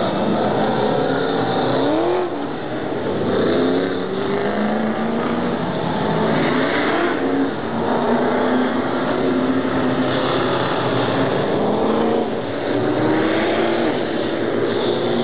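Several oval-track stock cars racing in a pack, their engines running hard. The engine notes overlap and their pitch rises and falls as the cars accelerate through the turn and pass by.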